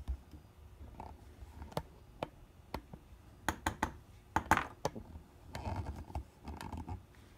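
Fountain pen barrel tapped and scraped against a tray to knock out crumbling bits of a hardened rubber ink sac: a series of sharp taps, bunched at about three and a half to five seconds in, then a scraping rattle near the end.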